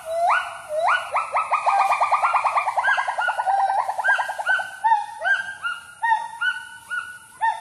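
Gibbon song. A rising whoop opens it, and about a second in it breaks into a fast run of quick notes that slowly fall in pitch. Separate short rising hoots follow, several a second, through the rest.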